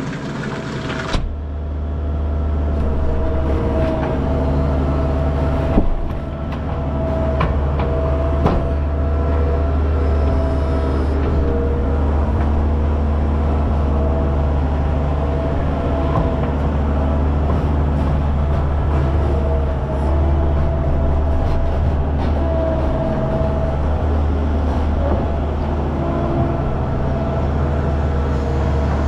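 Engine of a farm machine running steadily under load while hay bales are moved, with a few sharp knocks and clunks.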